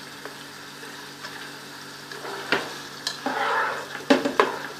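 Beaten eggs and sliced onions frying with a steady sizzle in hot oil in a pan. A few sharp taps and scrapes of a spoon against the pan come in the second half.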